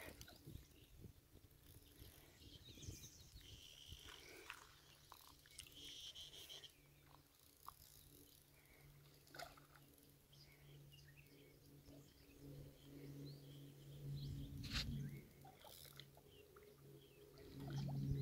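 Near silence: faint open-air ambience with a few faint bird chirps and a faint steady low hum.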